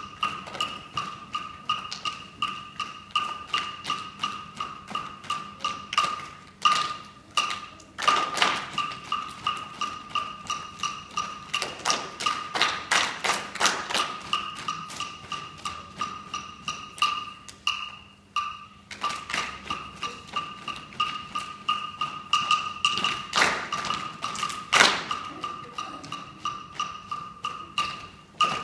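Percussion music: a wooden instrument struck in a steady quick beat, about two to three strikes a second, with louder accented strikes now and then. A steady high ringing tone runs beneath the beat.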